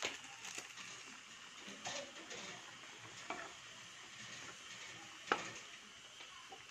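Wooden spatula stirring chicken curry in a nonstick pan: a few short knocks and scrapes against the pan, the loudest about five seconds in, over the steady faint hiss of the simmering sauce.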